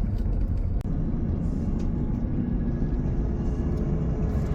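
Heavy road-repair machinery running steadily as it strips the old asphalt layer: a loud, continuous low rumble.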